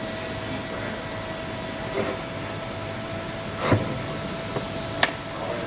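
Tesla Model 3 rear drive unit's electric oil pump running with a steady whine, still running because the car is still switched on. Three short knocks sound over it, the loudest about midway.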